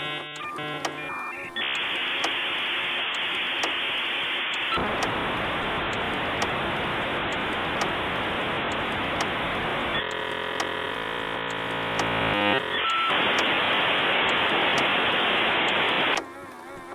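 Dial-up modem handshake over a telephone line. Brief warbling tones open it, followed by a long steady hiss. About ten seconds in comes a couple of seconds of buzzing, many-toned training, then the hiss returns and cuts off suddenly near the end, the sign that the modems have finished negotiating and connected.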